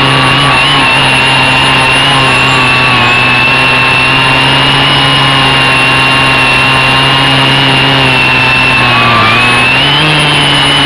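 Quadcopter's electric motors and propellers running steadily with a loud whining hum. Near the end the pitch dips briefly, then rises again.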